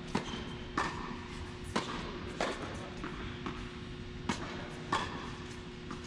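Tennis rally: a tennis ball struck by rackets and bouncing on the court, heard as about six sharp pops at uneven intervals, over a steady low hum.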